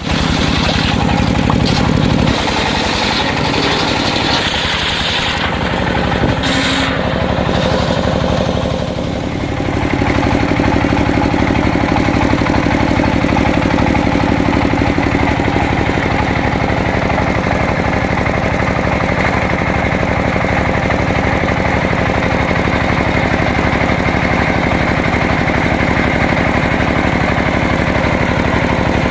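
Engine-driven circular sawmill running steadily, its engine chugging in an even rhythm. In the first several seconds there are a few short bursts of bright, hissing noise over the engine.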